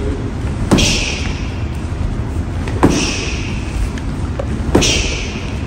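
Knee strikes landing on a handheld kick shield: three dull thuds about two seconds apart, each followed by a short hiss.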